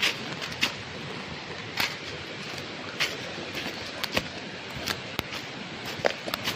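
Steady rushing outdoor noise, likely the stream, with irregular light clicks and knocks about once a second, typical of footsteps on a rough path.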